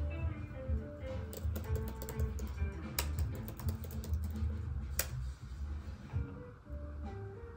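Laptop keyboard being typed on, a quick irregular run of key clicks, over background music.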